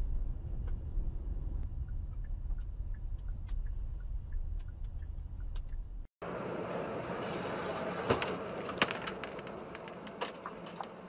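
Dashcam audio from inside a moving car: a steady low engine and road rumble with faint ticks. Then comes a louder rushing road and wind noise with several sharp knocks.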